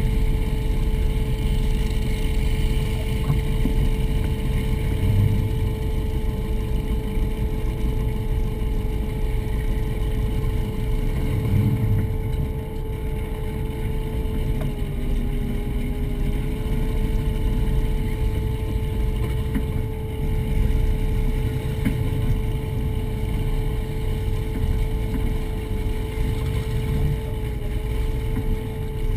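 Motion 43GT catamaran's Mercury engines idling steadily: a low rumble with a steady high hum on top, dipping slightly in pitch about halfway through.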